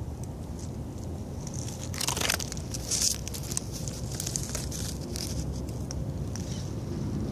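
Dry leaf litter crunching and crackling in a cluster of sharp crackles from about two seconds in to about five and a half seconds, the loudest about two seconds in, over a steady low rumble.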